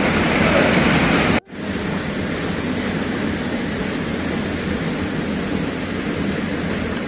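Steady rushing of a waterfall, with a sudden momentary dropout about a second and a half in, after which the rush carries on a little quieter.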